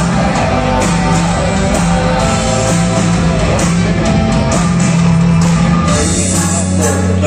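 Live rock band playing a song: electric guitar, keyboards, bass and drums, with a held low bass line and steady drum and cymbal hits.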